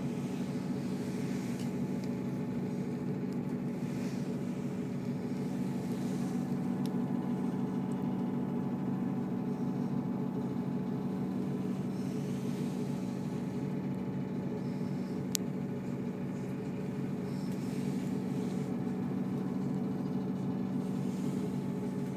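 Diesel train's engine idling while stopped at a station, heard from inside the carriage: a steady low hum with constant tones. A single short click about fifteen seconds in.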